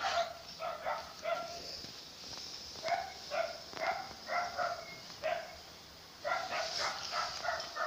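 A dog barking in quick strings of short, fairly high yaps, in three runs with short pauses between.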